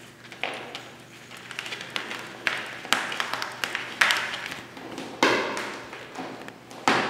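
A tabby kitten grooming, licking its front paw: a series of short, sudden strokes, roughly one a second, each fading quickly, with fainter ticks in between.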